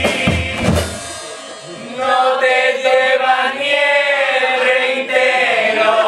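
A male group singing live with drum accompaniment: a few bass drum strokes in the first second, then from about two seconds in a long held sung note closing the verse.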